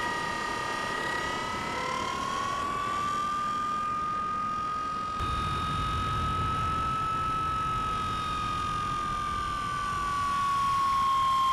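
Electric motor and propeller of a Bixler 3 RC plane running in flight: a steady whine that rises a little in pitch about two seconds in and eases down near the end, over a steady hiss.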